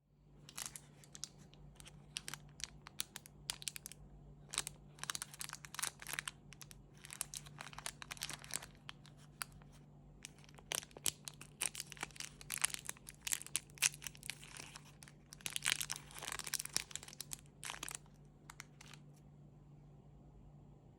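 Chocolate wrapper being unwrapped by hand, crinkling and tearing in irregular runs of crackles that stop about two seconds before the end.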